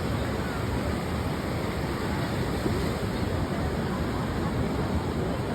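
Steady noise of ocean surf washing onto a beach.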